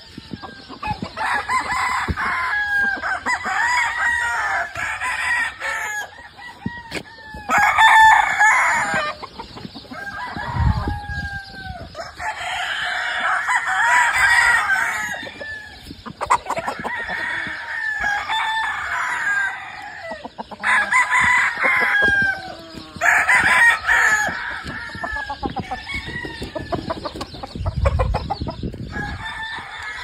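Many gamefowl roosters crowing, one after another and sometimes several at once, with barely a break between crows.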